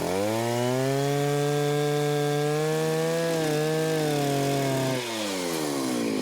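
1970s Jonsered 801 two-stroke chainsaw, fitted with a 32-inch bar and skip-tooth chain, revving up and holding a steady pitch as it cuts through a log. About five seconds in, the engine pitch slides down as the throttle eases off.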